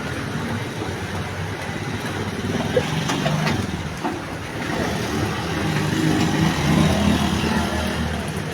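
Steady motor-vehicle rumble, engine and road noise, with no distinct events standing out.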